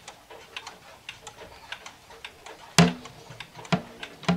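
Mechanical pendulum clock ticking, a run of light, fairly regular clicks. Three louder wooden knocks come from the clock case being handled: one about three seconds in, one a second later and one at the very end.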